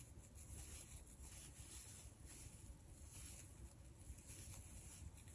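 Faint, soft rustling of yarn and a crochet hook as stitches are worked, about twice a second.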